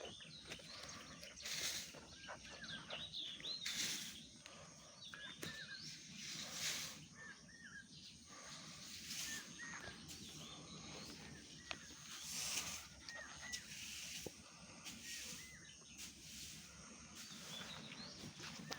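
Small birds chirping repeatedly, with short rustling or scuffing noises every second or two.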